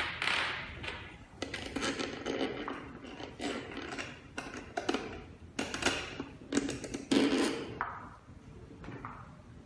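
Parts of a fingerprint door lock being handled and fitted into a door panel: irregular knocks, clicks and rubbing of metal and plastic against the panel.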